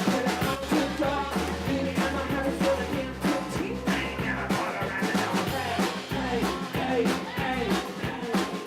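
A band playing a rock song with a drum kit beat and melodic lines over it.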